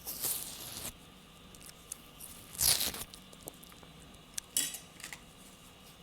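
Fluffy, powdery freezer frost crunching in short bursts: one lasting most of the first second, the loudest about two and a half seconds in, and a shorter one near the end, with small clicks between.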